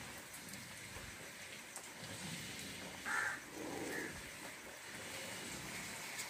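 A bird gives one short, harsh call about three seconds in, over a faint, steady background hiss.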